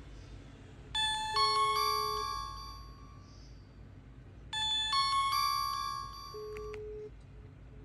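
Alcatel OneTouch 1052G feature phone ringing for an incoming call: a chiming multi-note ringtone plays twice, about a second in and again about four and a half seconds in. Under each ring a short, low steady beep sounds, the calling phone's ringback tone.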